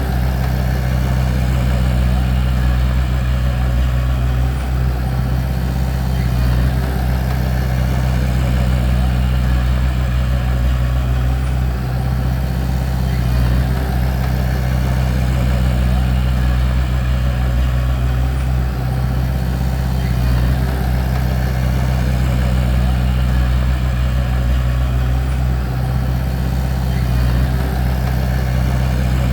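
Bulldozer's diesel engine running steadily, a loud, deep, even drone with no revving.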